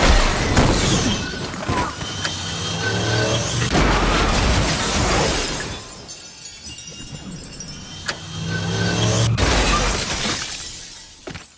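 Car crash sound effects: loud smashing and shattering glass in three bursts, with quieter debris in between, fading away near the end.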